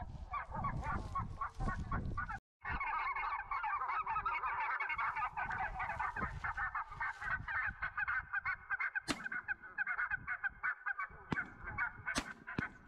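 Many geese honking at once, a dense chorus of overlapping calls. Wind rumbles on the microphone for the first couple of seconds, the sound drops out briefly about two and a half seconds in, and a few sharp clicks come in the second half.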